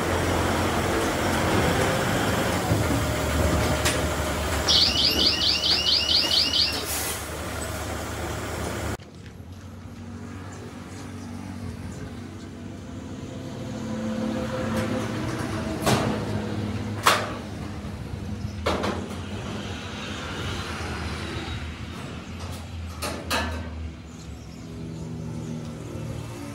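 A large truck's diesel engine running as it pulls in, with a rapid series of about eight high chirps lasting a couple of seconds. After that a much quieter background with several sharp metal clanks as the corrugated sheet-metal doors of a compressor shed are opened.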